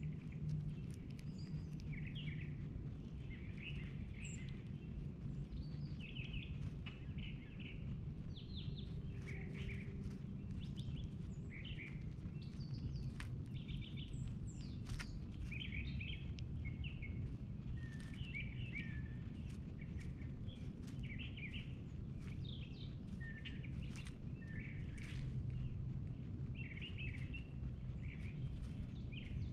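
Backyard songbirds chirping in short, repeated calls over a steady low background rumble, with scattered faint clicks.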